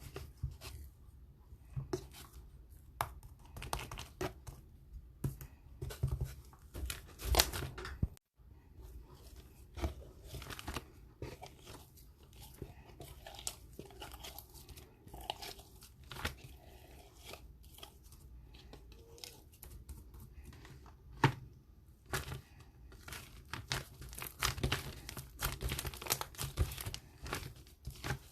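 Cloud slime being stretched and pulled apart by hand: irregular soft tearing and crackling, with sharper pops now and then and a brief break about eight seconds in.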